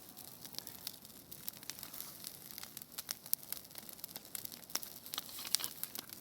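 Bonfire crackling: a steady hiss with many irregular sharp pops and snaps from the burning wood.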